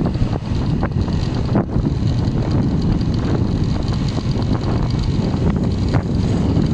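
Wind buffeting the microphone of a moving motorcycle, with the motorcycle's engine running underneath as a steady rumble. A few light knocks are heard.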